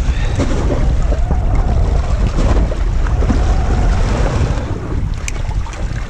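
Wind buffeting the microphone over sea water lapping against the boat's stern and the outboard's lower unit, with a single sharp click about five seconds in.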